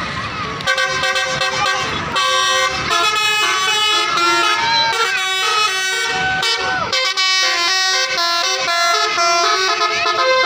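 Indonesian bus telolet horn, a multi-tone air horn, playing a fast melody of several notes that step up and down. It starts about a second in and keeps going.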